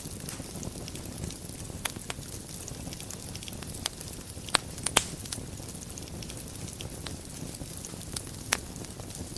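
Wood fire burning in a fireplace: a steady low rumble and hiss with scattered sharp crackles and pops, the loudest two close together about halfway through.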